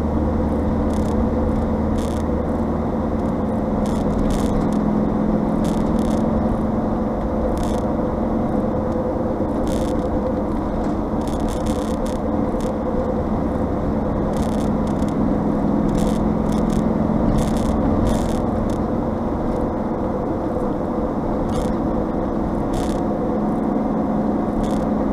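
Steady engine and tyre drone of a car at cruising speed, heard from inside the cabin, with a constant low hum and short rattling clicks now and then.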